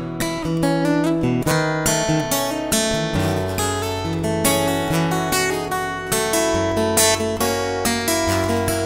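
Solo steel-string acoustic guitar played fingerstyle: a plucked melody over held bass notes and chords.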